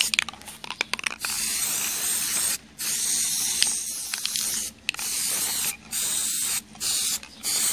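Aerosol spray-paint can hissing in a series of about five short bursts, each under a second to two seconds long, with short clicks in the gaps between them.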